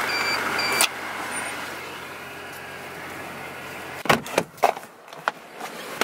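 A parking ticket machine gives two short electronic beeps, then a click as the ticket comes out. A car idles steadily, heard from inside the cabin, with a few knocks and clicks of handling about four to five seconds in.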